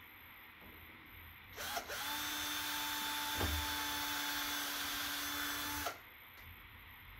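Cordless drill running at a steady speed as it bores through 3/4-inch schedule 40 PVC pipe. It starts about a second and a half in, runs for about four seconds, and stops abruptly.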